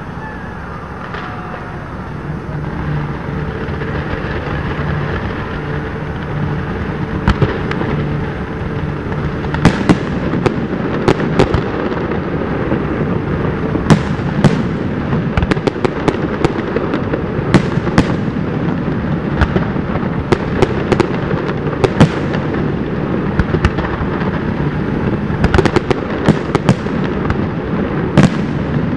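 Fireworks display: aerial shells bursting with sharp bangs, the first about seven seconds in, then coming thick and fast, several close together at times, over a continuous din.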